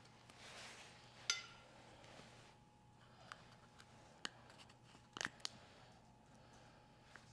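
Quiet handling of an open metal ink tin: one sharp metallic click about a second in, then a few lighter taps as a flat knife scoops thick ink out of the tin.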